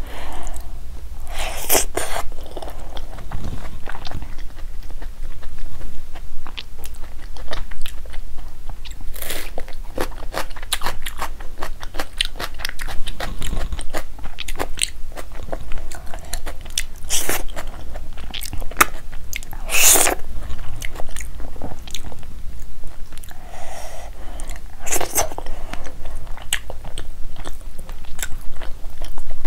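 Close-miked chewing and biting of hand-fed mouthfuls of rice and spinach curry: a steady run of wet mouth clicks, with several louder, sharper bites spread through.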